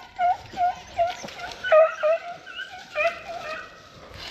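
Pack of rabbit hounds baying in short, repeated cries, about two or three a second with several dogs overlapping, as they run a rabbit's trail; the cries fade out in the last second.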